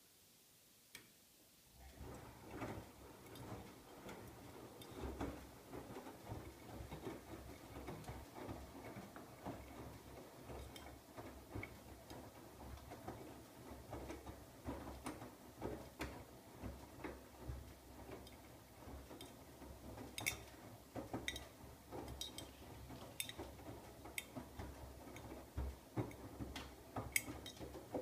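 Siemens iQ700 front-loading washing machine in its wash cycle: the drum turns with a low steady hum as wet laundry tumbles and sloshes in sudsy water, with many irregular clicks and taps. It starts about two seconds in.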